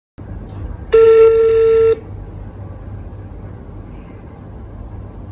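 Ringback tone of an outgoing call to a Chinese mobile number, heard over an iPhone's speakerphone: one steady beep about a second long starting about a second in, then a low line hiss while the call keeps ringing unanswered.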